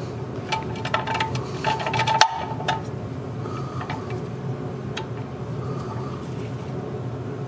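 Ratchet wrench clicking in short runs as an oil drain plug is snugged down about a quarter turn past finger tight. There is one sharp metallic click about two seconds in, then a few single clicks.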